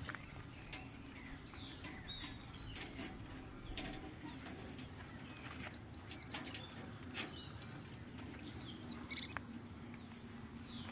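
Faint scattered clicks and scrapes of steel tie wire being twisted with pliers to bind rebar, with small birds chirping now and then.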